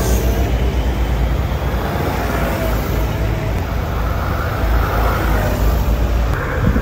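Diesel tractor engines running steadily as several tractors drive out of the yard, one passing close by.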